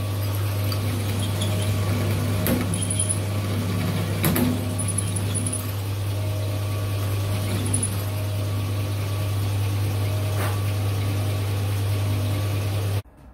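Drill press running with a steady hum while a twist drill bores into the end of a metal round bar, with a few sharp clicks. The sound cuts off suddenly near the end.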